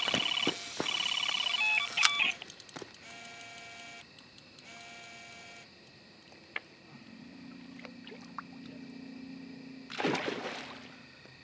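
Electronic carp bite alarms sounding a run: fast high beeping that breaks off about two seconds in, then two shorter, lower-pitched tones. A brief burst of water splashing about ten seconds in, as a fish is drawn into the landing net.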